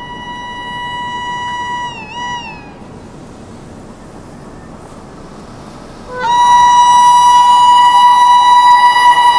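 Indian Railways electric locomotive horn from an approaching train, two long blasts. The first, quieter one wavers in pitch and stops about two seconds in. After a pause, a much louder blast starts about six seconds in and holds steady.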